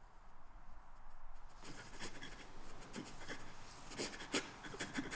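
A man crying quietly: shaky breaths and sniffles that start about a second and a half in and come in sharper catches near the end.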